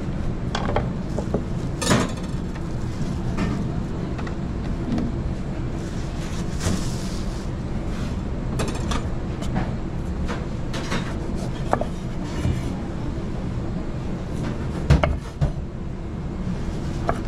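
Restaurant kitchen work noise: scattered knocks and clatter of pans and utensils over a steady low hum. The loudest knocks come about two seconds and fifteen seconds in, with a brief hiss around seven seconds.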